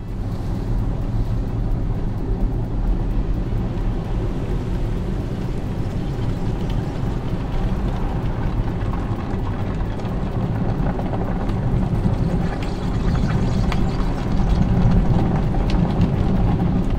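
Steady low rumbling wash noise from a cartoon car-wash scrubber working over a car on the conveyor, growing a little louder near the end.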